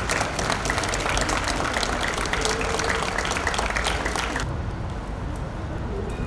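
A crowd clapping: a dense patter of many hands that cuts off abruptly about four and a half seconds in, leaving only a low outdoor rumble.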